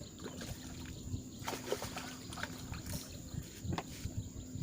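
Irregular water splashing and sloshing from a Nile tilapia just caught on rod and line being brought in.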